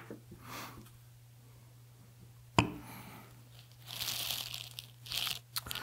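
Rotted foam speaker surround being picked and torn off the rim of a subwoofer's cone and basket, in short scratchy tearing and crumbling bursts, mostly in the second half. The foam has deteriorated and comes apart in pieces. A sharp knock about two and a half seconds in, over a steady low hum.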